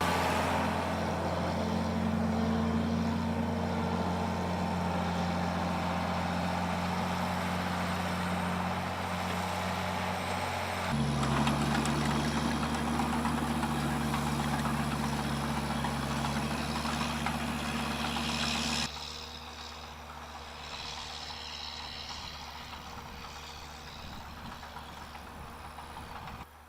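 Farm machinery engines running steadily, with mechanical rattle and clatter over them. The sound changes suddenly twice, at about 11 seconds and again at about 19 seconds, where it drops to a quieter machine.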